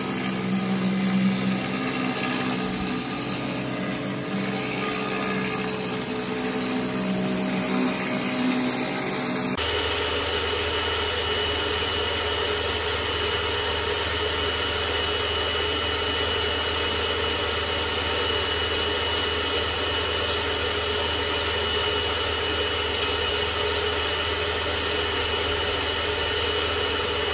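Pressure washer running steadily, spraying water onto concrete paving slabs, first through a rotary patio surface cleaner and then from a spray lance. The sound changes abruptly about ten seconds in, when the lance takes over, and then holds steady.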